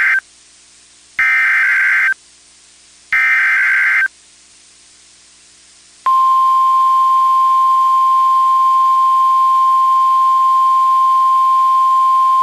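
Emergency Alert System broadcast on NOAA Weather Radio: the screeching data bursts of the SAME header, each about a second long and two seconds apart (the first already under way), then about six seconds in the steady 1050 Hz warning alarm tone starts and holds. Together they mark the start of a new alert, here a winter storm warning.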